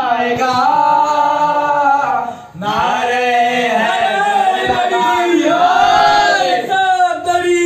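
A young man's voice singing a devotional Urdu-style recitation into a microphone, with other men's voices joining in the chorus. The melody is held in long notes, with a short break about two and a half seconds in.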